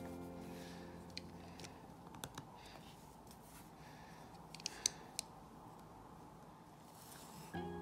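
Sparse, sharp little clicks of plastic LEGO pieces being handled and pressed together, a few at a time with pauses between. Background music fades out in the first second and comes back near the end.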